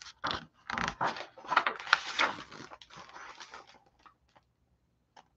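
Pages of a large hardcover picture book being turned and handled: a run of paper rustling and crinkling that fades out after about three and a half seconds.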